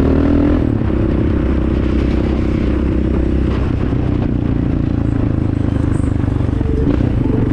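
Vehicle engine running steadily while being ridden along a road.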